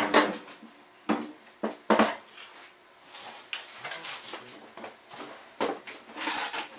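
Hard plastic knocks and clatter from a Stihl backpack blower's engine and fan housing being shifted against its frame while its four mounting springs are lined up in their holes. A few sharp knocks come in the first two seconds, then softer scraping and rubbing.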